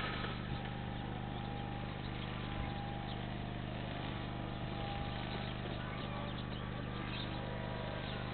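Steady low hum that does not change, with faint short chirps, likely from small birds, at times over it.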